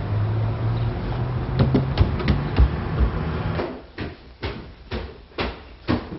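A steady low hum with a few scattered knocks, then, from a little past halfway, footsteps thudding up wooden stairs at about two steps a second.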